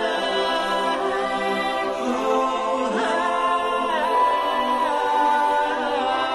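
Background music: a cappella choral singing, several voices holding long notes and sliding between them.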